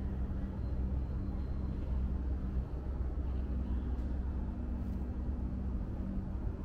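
A steady low mechanical hum, with a faint steady tone above it.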